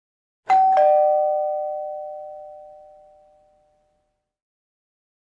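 Two-note chime doorbell sounding once, a 'ding-dong': a higher note and then a lower one, struck a quarter second apart and ringing out over about three seconds.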